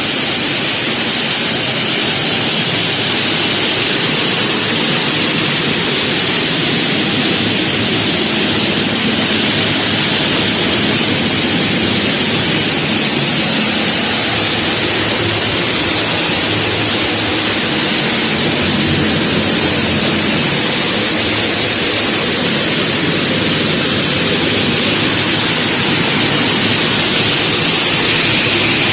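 Pine nut shelling machine running: a loud, steady rushing noise of the machine working, with no clear rhythm or change.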